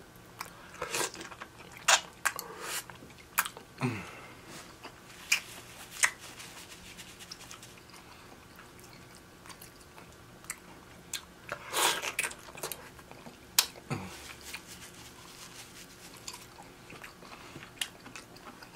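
Close-miked eating of a seafood boil: chewing and biting with scattered sharp crunches and cracks, a few louder ones near 2, 12 and 14 seconds in.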